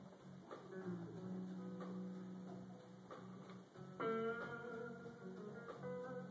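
Live electric guitar playing a quiet, sparse passage of single plucked notes over a low sustained tone, with a louder ringing note or chord about four seconds in.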